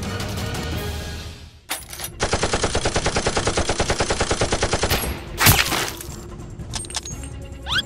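Rapid automatic gunfire, about ten shots a second for nearly three seconds, then one loud sharp hit. Background music cuts out just before the burst, and two quick rising chirps come near the end.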